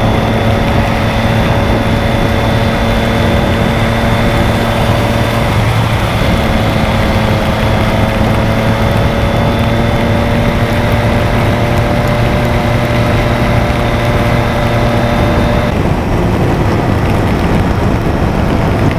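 Motorcycle engine running at a steady cruising speed on a wet highway, its hum holding an even pitch under heavy wind and road noise. The tone breaks briefly about six seconds in and shifts again about sixteen seconds in.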